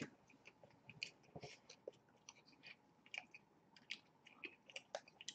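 Faint chewing and wet mouth sounds of people eating fast food and sundae ice cream, with scattered small irregular clicks.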